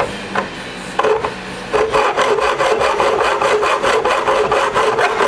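Hand hacksaw cutting an aluminium bar: a few separate strokes to start the cut, then steady, rapid back-and-forth strokes of about four a second from about two seconds in.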